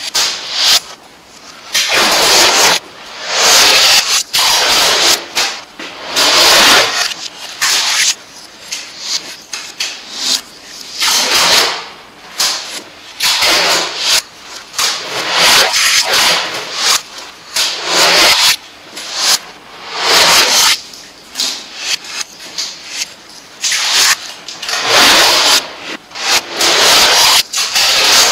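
Orange plastic adhesive tape being pulled and torn in repeated loud rasping strips, each lasting about half a second to a second. Between pulls the tape is crinkled and rubbed flat by hand.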